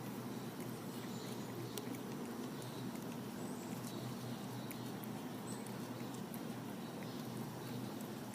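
Cats licking yogurt: faint, quick, wet lapping clicks over a steady low hum.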